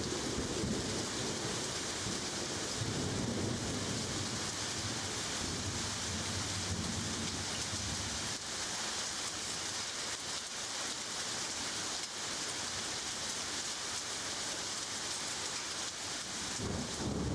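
Steady heavy rain hissing, with a low rolling thunder rumble through the first half that dies away around the middle and starts again near the end.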